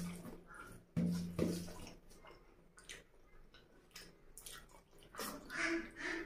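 Close-miked wet chewing and mouth smacking from someone eating a mouthful of rice and mutton curry by hand, with scattered clicks. A louder wet slurping sound comes a little after five seconds in, as more food goes into the mouth.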